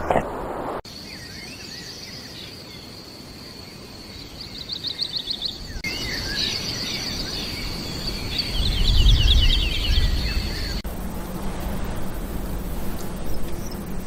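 Nature ambience: a steady high-pitched insect trill, pulsing in places, with birds chirping over it and a low rumble about nine seconds in. A little before the end it cuts abruptly to a low steady hum.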